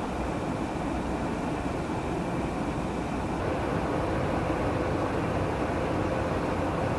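Steady roar of a KC-135 Stratotanker's engines and rushing air, heard from inside the tanker in flight, with a faint steady hum that grows slightly louder about halfway through.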